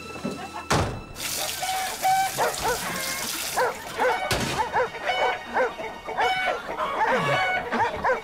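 A dog barking and yelping in quick, excited runs of several barks a second, after a short noisy clatter about a second in.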